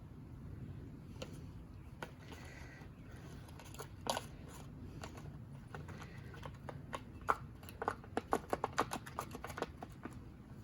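Small plastic and metal parts of a string trimmer being handled and fitted by hand: scattered light clicks and taps, then a quick run of clicks in the last few seconds.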